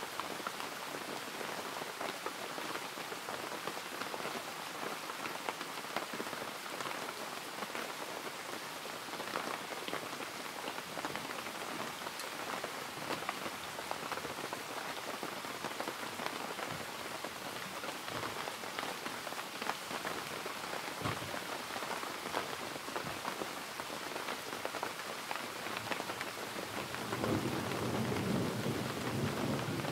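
Steady rain falling, with a low rumble of thunder swelling near the end.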